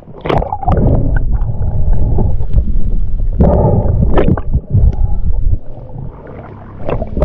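Water sloshing, gurgling and rumbling around an action camera as it bobs at the surface and dips underwater, with scattered small knocks and bubbles. It drops quieter about five and a half seconds in.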